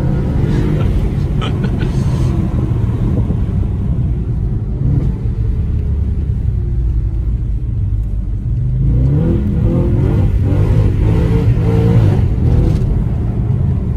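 Audi RS4 B8's 4.2-litre naturally aspirated V8, heard from inside the cabin under way. The engine note rises and falls as it is driven, with a quieter, steadier stretch in the middle and several quick rising revs in the second half.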